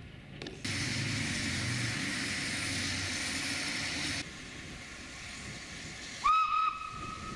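Steam locomotive hissing steam loudly for about three and a half seconds, cut off abruptly. About six seconds in its steam whistle sounds: a loud wavering start that settles into a steady held tone.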